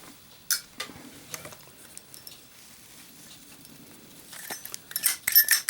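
Handling of a gold-plated Zippo lighter and its insert: a light click about half a second in, faint taps, then a run of sharp metallic clicks and ringing clinks near the end.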